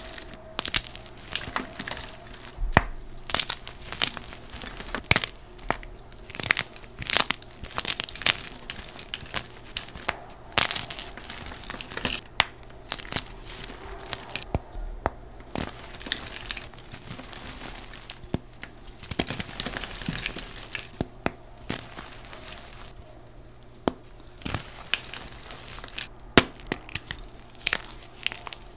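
Blocks of dyed gym chalk being crushed and crumbled in bare hands: a dry, gritty crunching, broken by frequent irregular sharp snaps as chunks break apart.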